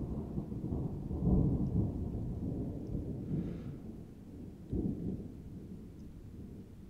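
Thunder from a nearby thunderstorm: a low rolling rumble that swells about a second in, with a sudden sharper clap a little over two-thirds through, then dying away.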